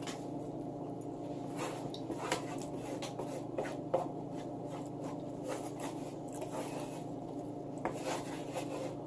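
Quiet eating sounds: a fork clicking and scraping on a plate, a scattering of short light clicks, over a steady low hum.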